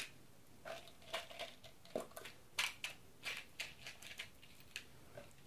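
Small clear plastic tubs of metal wading-boot cleats being handled and opened: scattered light clicks, taps and rattles.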